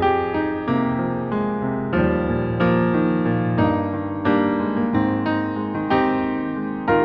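Background piano music, gentle, with notes struck about one or two a second, each fading before the next.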